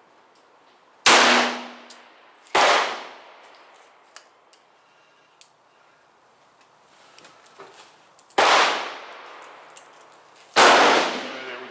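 Four shots from a .44 Special Bisley revolver firing light cast-bullet handloads, each a sharp report with an echoing tail. Two come about a second and a half apart, then after a pause of about six seconds two more come about two seconds apart.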